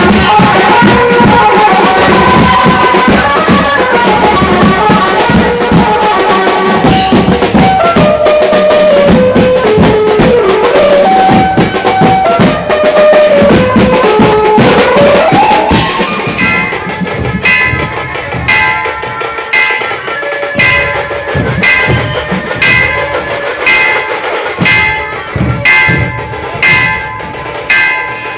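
Procession street band with a drum kit and snare drumming fast under an amplified melody that winds down in pitch and climbs back up. About halfway through the melody stops, and a steady beat of ringing metallic strokes, about one or two a second, carries on with the drums.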